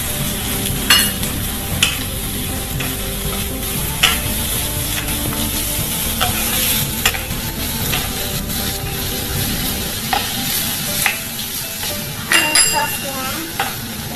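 Glutinous rice and sliced Chinese sausage sizzling in oil in a wok while a wooden spatula stirs and scrapes, knocking sharply against the pan now and then.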